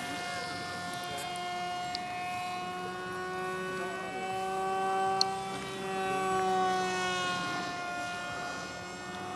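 Propeller motor of a radio-controlled flying wing in flight, a steady whine that rises a little in pitch and grows louder around the middle, then eases off.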